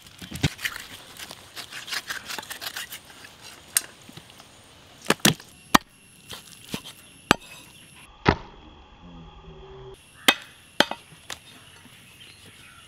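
Heavy meat cleaver chopping raw beef on a wooden log chopping block. A quick run of chops comes in the first few seconds, then single sharp blows at irregular gaps of a second or two.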